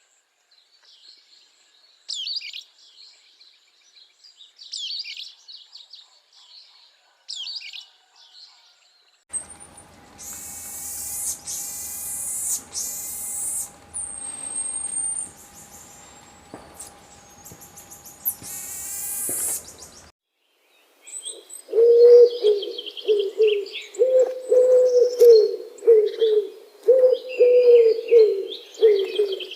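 Birds calling in three spells. First come short high chirps about every two to three seconds. From about nine seconds in there are louder, harsh sweeping calls over a steady tone, and after a short break, from about twenty seconds, rapid low calls repeat to the end.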